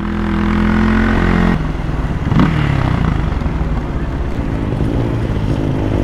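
Motorcycle engine running with a steady note, which about a second and a half in breaks into a rougher, uneven sound.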